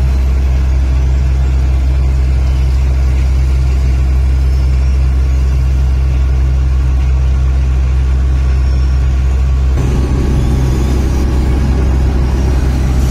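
Wirtgen W 200F cold milling machine's diesel engine running loud and steady with a deep hum. About ten seconds in, a coarser rumbling noise joins it.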